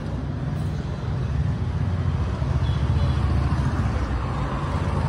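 An engine running steadily, a low rumble that grows louder from about a second and a half in.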